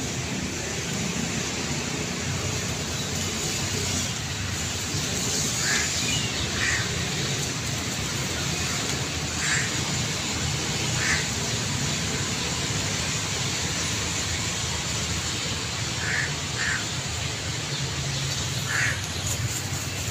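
Steady outdoor background rumble with about seven short, high bird calls, single or in pairs, scattered through it.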